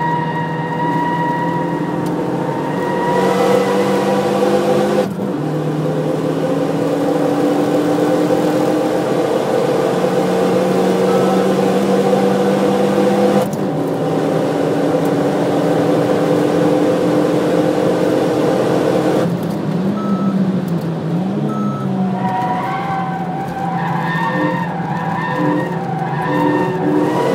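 Cabin sound of a stock Renault Mégane RS250's turbocharged 2.0-litre four-cylinder driven hard on track. The engine note steps abruptly about five and thirteen seconds in, as at gear changes. It wavers and shifts about nineteen seconds in, as it slows for a corner, and varies with throttle near the end.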